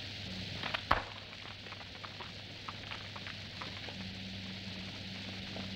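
A stained-glass window pane breaking with one sharp crack about a second in, followed by scattered small clicks, over the steady hiss and hum of an old film soundtrack.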